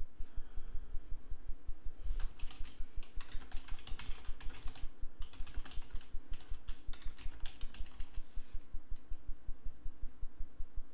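Computer keyboard typing in quick runs of key clicks, heaviest from about two to nine seconds in.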